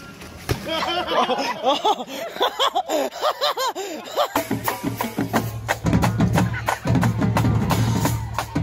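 Quick, repeated rising-and-falling cries for the first few seconds. About four seconds in, this cuts to a marching band playing: drums and brass over a strong low held note.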